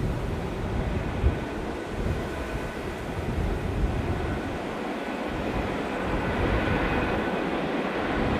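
Freight train hauled by two diesel-electric locomotives passing at a distance: a steady low rumble of engines and wagons, with a faint steady whine above it.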